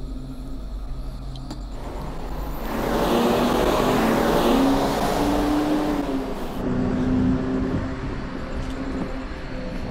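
A bus or similar large vehicle driving past, its engine and tyre noise swelling about two and a half seconds in and slowly easing off.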